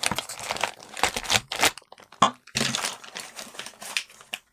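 Crinkling and rustling of packaging and fabric pencil cases being handled, an irregular run of crackles and rustles that stops just before the end.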